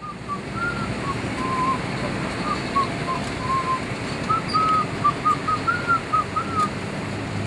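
A tune whistled as a run of short notes that step up and down in pitch, over steady low background noise; the whistling stops near the end.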